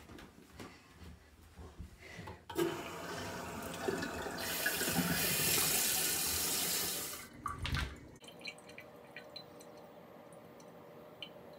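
Water running from a bidet faucet and splashing into the ceramic bowl. It starts a couple of seconds in, grows louder partway through, and stops suddenly when the tap is shut off about five seconds later.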